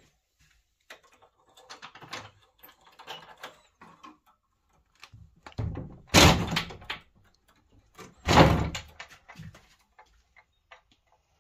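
Wooden door being handled and pushed open: scattered clicks and rustling, then two loud bumps about two seconds apart.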